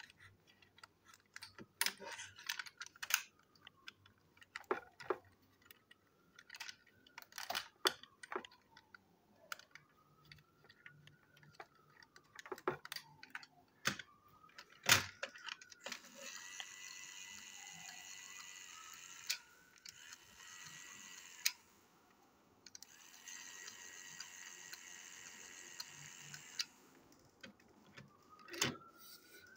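Clicks and plastic snaps of a battery-powered Plarail toy engine being handled and fitted together, then the toy's small electric motor and gears whirring steadily for about five seconds, stopping briefly, and whirring again for about four seconds.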